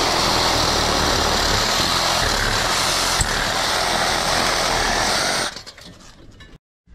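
Milwaukee cordless reciprocating saw cutting through copper pipe on a finned coil, running steadily at full speed, then stopping suddenly about five and a half seconds in as the pipe is cut through.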